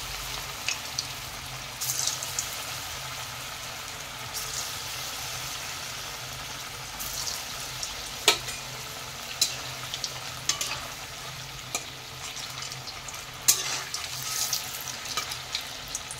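Bottle-gourd kofta balls deep-frying in hot oil in a kadai: a steady sizzle with scattered sharp clicks, as more balls go into the oil one by one.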